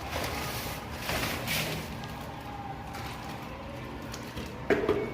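Measures of dry cement powder being tipped into a bucket of Sika Latex and water, making two soft rustling pours early on, then a short knock near the end.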